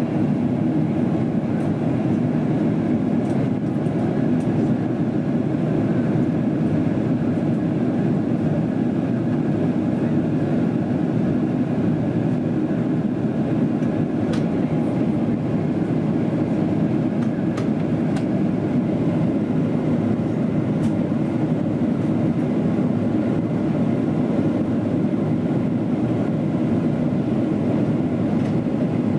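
Steady cabin roar of a Boeing 777-300ER in descent, heard from a window seat beside its GE90-115B engine: engine noise and rushing airflow. Now and then there is a faint click.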